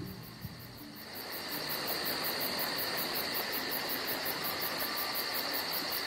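Insect chorus: a steady high-pitched trill over a background hiss, growing a little louder about a second in.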